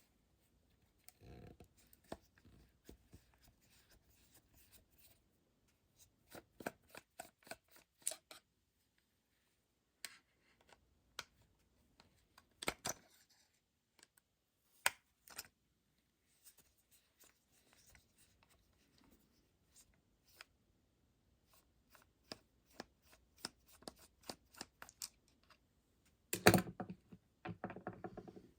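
Scattered small clicks and ticks of a Torx screwdriver working the small screws out of a plastic electric-shaver housing, with the parts being handled. Near the end there is a louder clatter of the parts being moved or set down.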